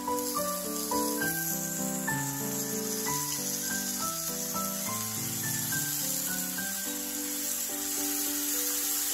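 Soy-sauce seasoning sizzling as it is spooned onto tofu frying in a hot pan, a high hiss that picks up right at the start, under background music playing a melody of short steady notes.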